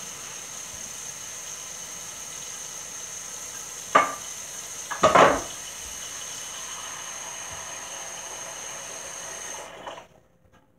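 A frying pan being knocked and set down, in two loud clattering knocks about four and five seconds in, over a steady hiss that cuts off suddenly near the end.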